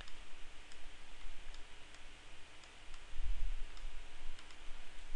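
Computer mouse clicking every so often over a steady hiss, with a dull low bump a little after three seconds in.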